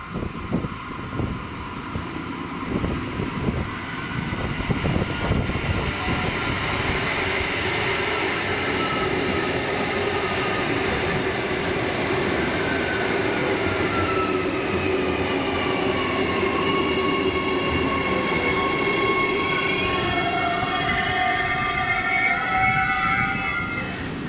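Adelaide Metro 4000 Class electric multiple unit pulling into a platform, with a steady rumble of wheels on rail. From about halfway, its whine slides down in pitch as it slows, and near the end several higher tones sound together as it comes to a stop.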